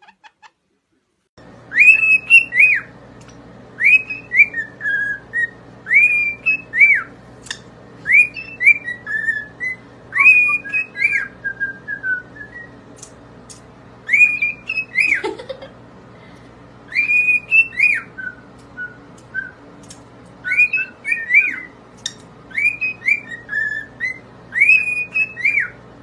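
Pet cockatiels whistling the same short rising-and-falling tune over and over, about once every two seconds, with a brief lower call midway.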